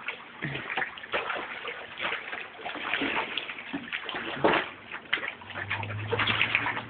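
Pool water splashing and sloshing in irregular bursts as a person wades through a swimming pool and pushes a bodyboard along at the edge.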